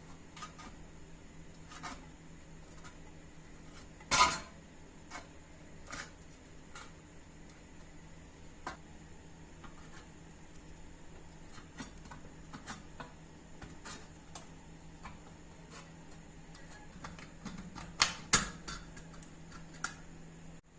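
Metal parts of a rusty vegetable slicer being handled, with scattered clicks and clinks, a louder knock about four seconds in and two more close together near the end, over a faint steady hum.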